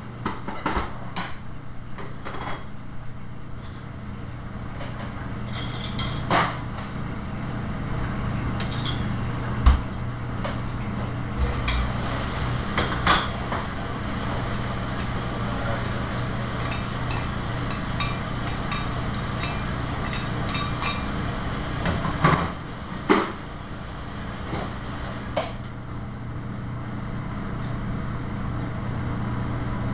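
Pots, pans and utensils clanking at a commercial gas range, a dozen or so sharp knocks scattered through, over a steady low hum.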